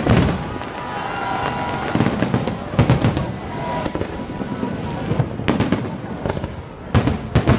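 Aerial fireworks shells bursting: a string of sharp bangs, one at the start, a cluster around two to three seconds in, another at five and a half seconds and a quick pair near the end.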